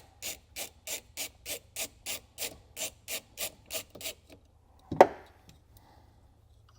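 Hand ratchet backing off a 10 mm nut: a short rasp of ratcheting on each back-swing, about three a second, stopping after about four seconds. One sharp click follows about five seconds in.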